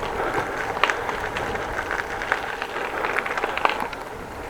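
Steady tyre and road noise from a moving bicycle, with frequent small clicks and rattles.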